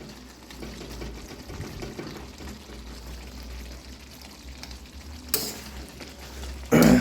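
Chicken pieces frying in a pot of spicy masala, sizzling and crackling steadily as they are stirred. A sharp click comes about five seconds in and a short loud sound just before the end.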